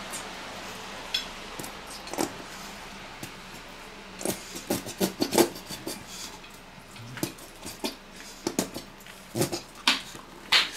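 Plastic squeeze bottle of mayonnaise spluttering and squelching as it is squeezed, in short, irregular squirts that come thick and fast from about four seconds in.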